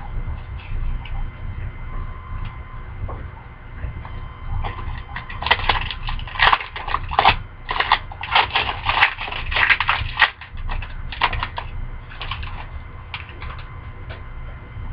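Trading cards and their pack wrapper being handled: a dense run of crinkly, clicking rustles for several seconds in the middle, over a steady low hum.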